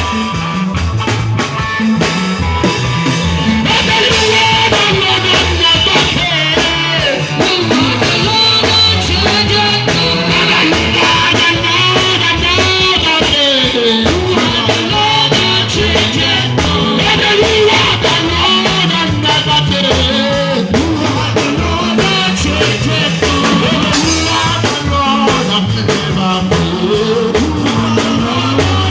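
Worship band playing loud, steady rock-style music with guitar, and a voice singing a melody over it.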